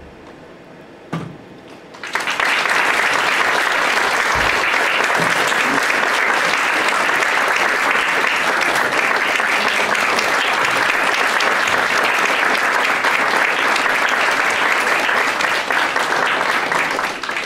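Audience applauding, rising in after a brief hush about two seconds in, steady, then thinning out near the end.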